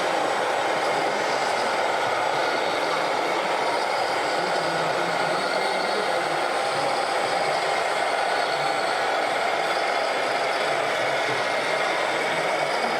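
Steady din of scale RC model trucks and construction machines running, with their sound modules playing truck engine noise.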